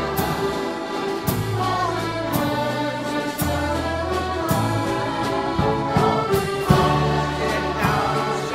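Accordion orchestra playing a tune in sustained, full chords. A double bass, piano and drum kit back it, with a cymbal or drum stroke about once a second.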